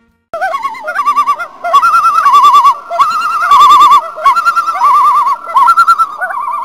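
Common loons giving their tremolo calls: loud, rapidly wavering laughing calls, two birds overlapping, which begin suddenly and stop abruptly.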